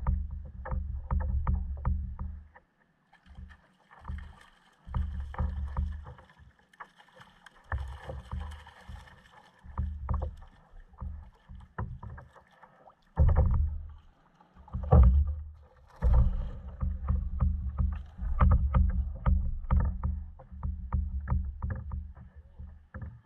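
Kayak sounds while a fish is played on rod and reel: low rumbling bursts of water and handling against the plastic hull, with many sharp clicks and ticks from the fishing reel and rod.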